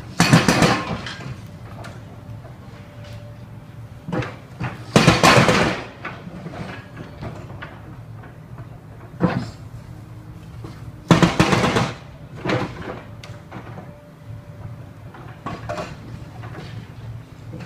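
Construction work noise: loud, harsh bursts about a second long, the biggest right at the start, about five seconds in and about eleven seconds in, with smaller knocks and clatters between them over a steady low hum.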